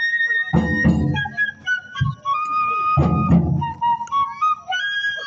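Japanese taiko drum ensemble with a bamboo transverse flute (shinobue) playing a high melody of held notes, while the drums strike in heavy clusters about half a second in, at two seconds and around three seconds.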